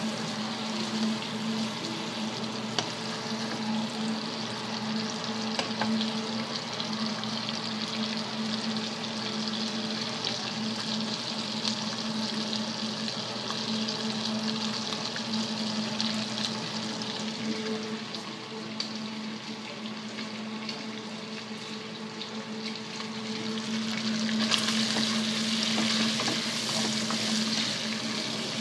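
Chopped bacon frying in its rendered fat in a pan, a steady sizzle full of fine spattering crackles as the pieces are stirred and turned. The sizzle eases for a few seconds past the middle, then grows louder and brighter near the end. A steady low hum runs underneath.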